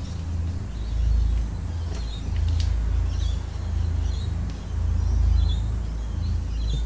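Dry-erase marker writing on a whiteboard, giving short high squeaks every second or so, over a steady low rumble.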